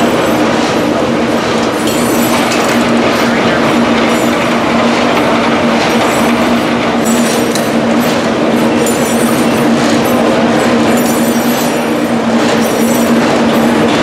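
Overhead line shafting turning its many pulleys and flat drive belts to run old belt-driven machine tools: a steady whirring clatter with a constant low hum.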